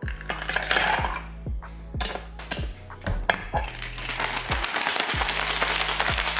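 Ice knocking into a glass cocktail shaker, then from about four seconds in a fast, continuous rattle of ice as the shaker is shaken hard to chill a daiquiri. Background music with a steady beat plays throughout.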